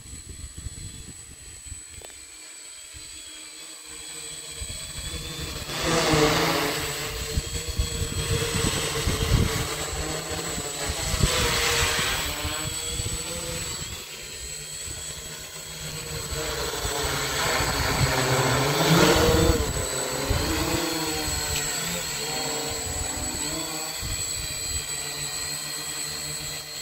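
F450 quadcopter's four brushless motors and propellers buzzing in flight, the pitch wavering up and down as the motors speed up and slow down. It swells louder three times, about 6, 12 and 19 seconds in.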